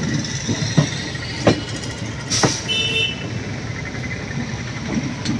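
Passenger train running along the track, heard from the coach's door: a steady rumble and rush with a few sharp wheel knocks as the coach passes over rail joints and points. A brief high-pitched tone sounds just after the middle.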